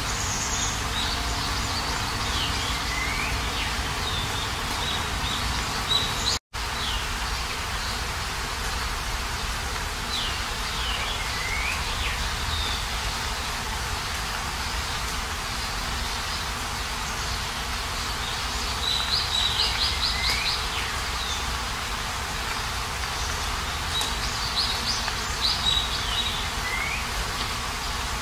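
Steady rain hiss with birds chirping now and then: short falling chirps, and quick trills about twenty and twenty-five seconds in. The sound drops out for an instant about six seconds in.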